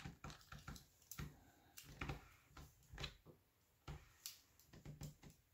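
Faint, irregular clicks and taps of small plastic Lego Technic pieces being handled and fitted together.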